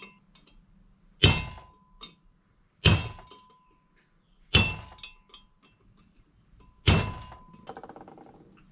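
Hammer striking a punch to drive the pinion bearing race and oil storage ring out of a Toyota 100 Series Land Cruiser front differential carrier housing. There are four sharp metallic blows, each ringing briefly in the metal, followed by a short rattle near the end as the housing is picked up.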